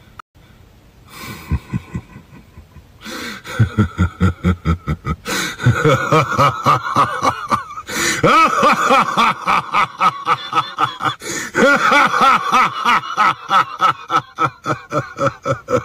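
Laughter: a voice laughing over and over in quick rhythmic bursts, several a second, starting about three seconds in and stopping just before the end.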